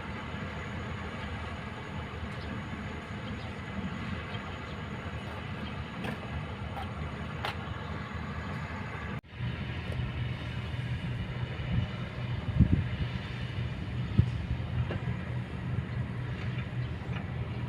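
Kobelco hydraulic excavator's diesel engine running steadily. It breaks off abruptly about nine seconds in, then resumes with a deeper, louder hum. A couple of sharp knocks follow, the loudest a few seconds later.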